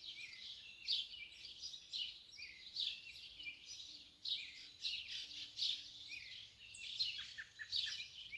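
A chorus of many songbirds chirping and singing at once, a steady overlapping stream of short high calls.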